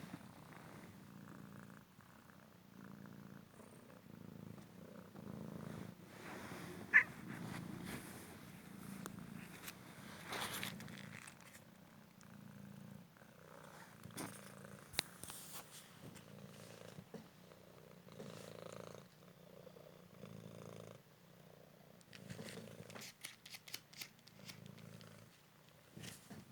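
Cymric cat purring steadily, a low purr that swells and fades with each breath. A single sharp click stands out about seven seconds in, and light ticks come near the end.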